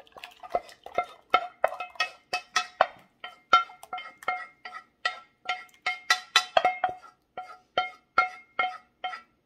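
A utensil knocking and scraping inside a metal saucepan to empty out the last of an Alfredo sauce: about three sharp strikes a second, each ringing briefly at the same pitch.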